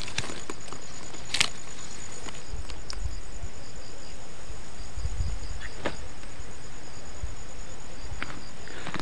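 Insects chirping in a steady, evenly pulsing high trill over a constant hiss. A few sharp clicks come from onion leaves being handled, about a second and a half in and again near six seconds.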